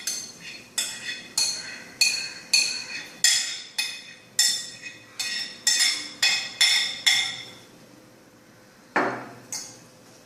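Serving utensils clinking against a dish as the salad is plated: about a dozen sharp, ringing clinks in quick succession, then a duller knock about nine seconds in, followed by a lighter one.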